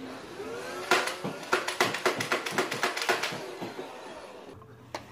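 A quick run of sharp clicks and knocks close to the microphone, about four or five a second for some three seconds, with rubbing just before, as a Nerf blaster is handled right at the phone.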